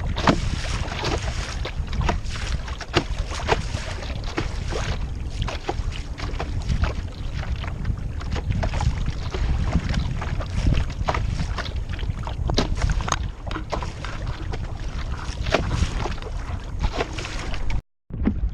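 Wind buffeting the camera microphone as a small foam Sea Snark sailboat moves through light chop, with irregular splashes and slaps of water against the hull. The sound cuts out for a moment near the end.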